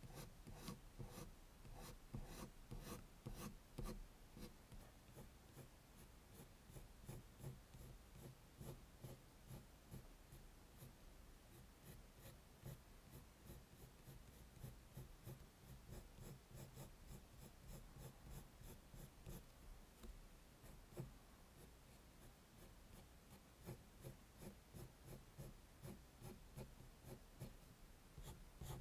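Faint scratching of a coloured pencil on drawing paper. It is a steady run of quick, short strokes, the kind laid down to draw fur.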